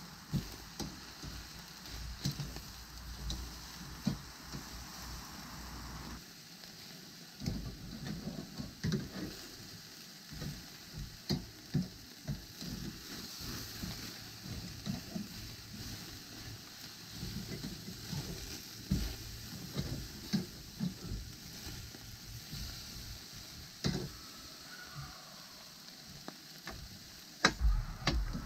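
Ribeye steaks sizzling as they sear directly over hot charcoal on a grill grate. Scattered sharp clicks come from metal tongs on the grate as the steaks are flipped and moved, loudest a few seconds before the end.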